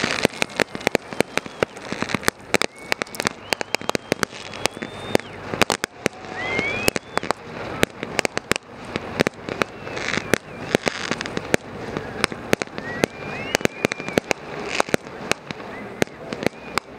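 Fireworks going off: a rapid, irregular string of sharp bangs and crackles, with a few short rising whistles in between.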